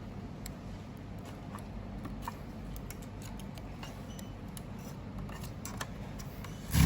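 Scattered faint clicks and taps of small parts being handled while reconnecting cables inside a fusion splicer, with one louder thump near the end.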